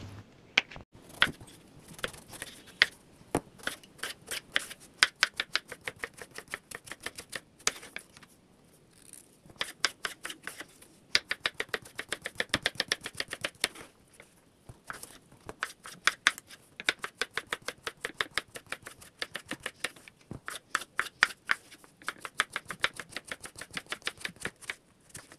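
Kitchen knife chopping peeled bottle gourd on a wooden cutting board: quick runs of light knocks at about five a second, with short pauses between runs.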